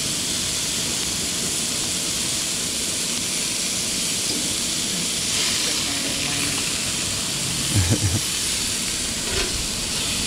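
Beef burger patties frying on a flat griddle over a Coleman two-burner propane stove, a steady sizzle. A brief low-pitched sound comes about eight seconds in.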